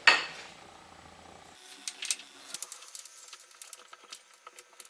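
A spoon tapping and scraping against a ceramic bowl and a drinking glass as sugar is spooned into the glass: a quick, irregular run of light clinks and ticks, after a single sharper knock at the very start.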